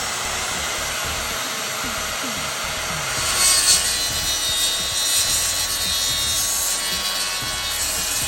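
Power saw cutting through timber in one continuous cut, starting abruptly and running steadily for about eight seconds.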